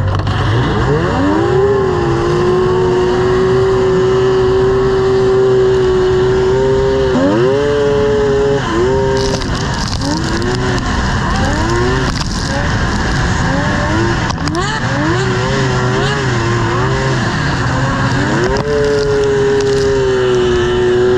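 1997 Polaris XC 600's two-stroke triple engine running hard at high revs. It climbs at the start and holds steady, then several times the revs drop and climb again before it holds high once more near the end.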